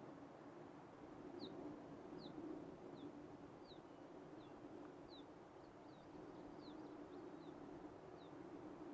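Faint bird calls: a string of short, high chirps, each sliding down in pitch, about one to two a second, over a steady low hum.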